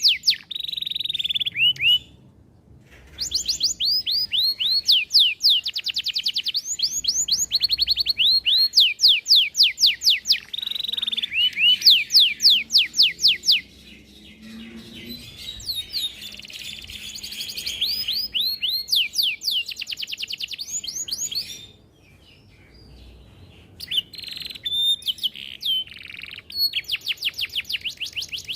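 Domestic canary singing: long rolling trills of fast, evenly repeated downward-sweeping notes, switching between phrases, with two short pauses.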